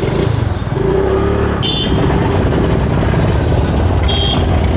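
Motorcycle engine and road noise as the bike rides on. The sound gets louder in the first second and then holds steady.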